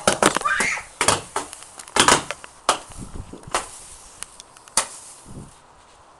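A close series of sharp, irregular knocks and clatters, about a dozen, loudest and thickest in the first second and dying away after about five seconds.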